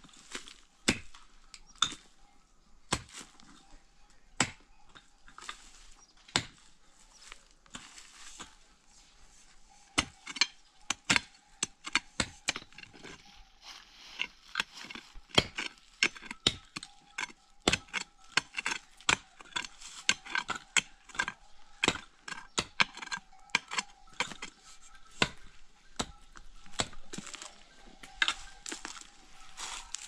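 Hand tool striking wood in irregular sharp blows, about one a second at first, then faster and closer together through the middle.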